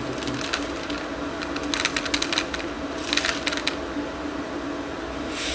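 Dried corn kernels poured into a grain scale's pan, rattling in two short clattering spills about two seconds in and about three seconds in, with a few more near the end, over a steady low hum.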